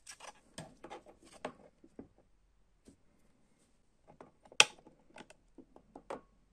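Clear plastic CD jewel case being handled and opened, a run of small plastic clicks and rattles, then one sharp, loud click about four and a half seconds in as the disc is pressed off the centre hub and lifted out, with a few lighter clicks after.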